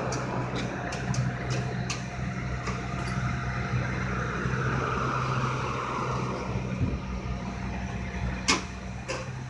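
Paratransit bus idling with a steady hum while its wheelchair lift lowers the platform, a faint steady whine from the lift motor running under it. A sharp click about 8.5 s in, as the platform nears the ground.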